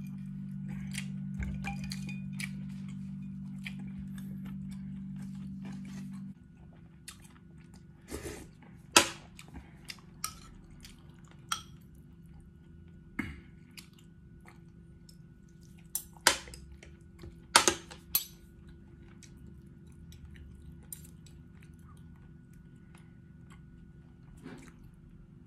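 Metal spoon and fork clinking against the bowls and plate during a meal: a scattered series of sharp clinks, the loudest between about eight and eighteen seconds in. A steady low hum cuts off about six seconds in.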